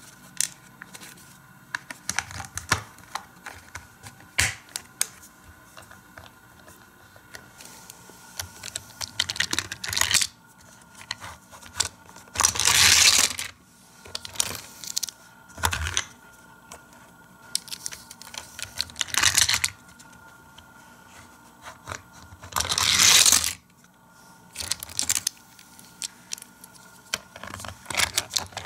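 Hard plastic parts of a Matchbox garage playset clicking, snapping and scraping as pieces are fitted together and handled, in scattered short clicks and rattles. Two louder rasping bursts, each about a second long, come about twelve seconds in and again about ten seconds later.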